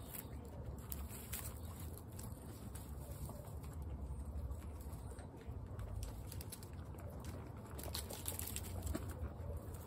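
Steady rain patter with many scattered sharp ticks over a low, even rumble.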